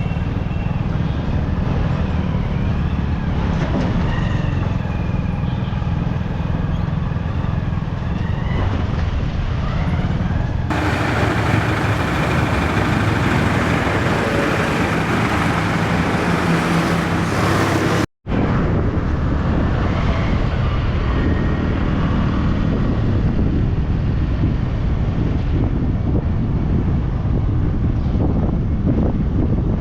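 Steady road traffic noise with a heavy low rumble, cut by a brief moment of silence about two-thirds of the way through.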